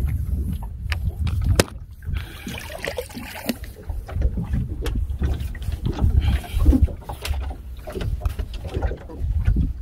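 Wind buffeting the microphone and water lapping at a small open fishing boat, with a few sharp knocks as a longline is hauled in by hand.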